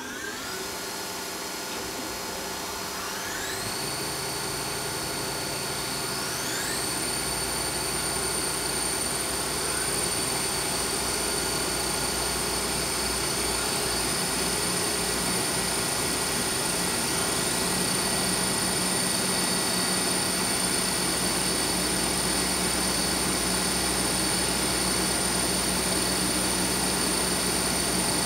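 The cutter-head spindles of a Weinig Unimat Star 1000 moulder start one after another. Each spins up with a rising whine and settles into a steady high-pitched hum at its 8,000 rpm running speed. The sound builds every few seconds as another head comes up to speed, then runs steadily with all heads spinning.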